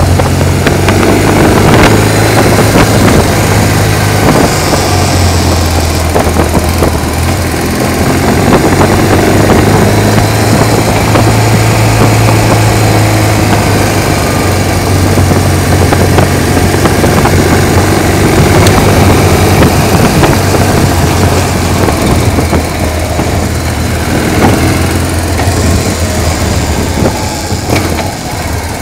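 Motorcycle engine running steadily while the sidecar rig rides along a country lane, with wind and road noise over it; the engine eases off briefly near the end.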